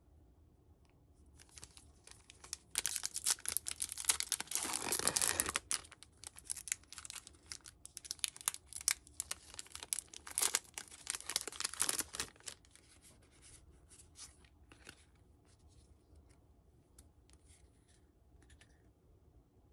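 Foil wrapper of a Pokémon trading-card booster pack being crinkled and torn open, a dense crackling that is loudest a few seconds in and dies down after about twelve seconds. Then come soft, sparse rustles and clicks as the cards are handled.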